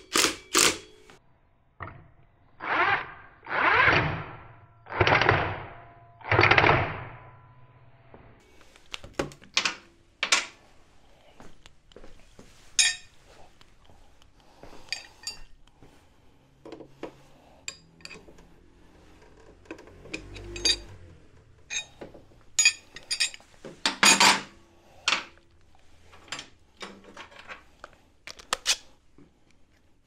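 A cordless power driver on the front brake caliper bolts of a scooter runs in four short bursts of about a second each, a few seconds in. Scattered clinks and knocks of hand tools and a wrench on the caliper follow, the loudest knock coming near the end.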